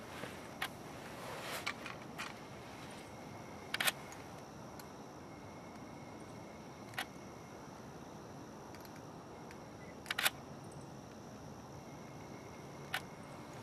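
Camera shutters clicking at irregular intervals, single clicks and two quick doubles, over a steady faint hiss with a thin high whine.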